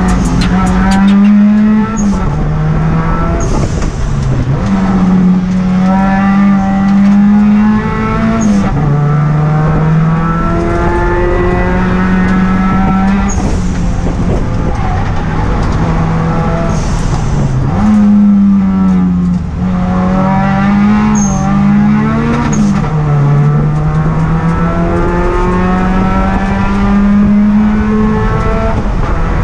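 Turbocharged Honda D16 inline-four in an EK Civic race car running hard on track, its engine note climbing and then dropping sharply again and again as it shifts through the gears.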